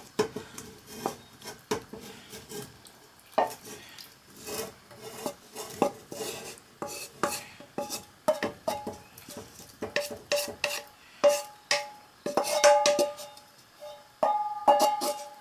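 Spoon clinking and scraping in a saucepan: a long run of irregular sharp taps and scrapes as chicken and mushrooms are tipped into a creamy white sauce and stirred.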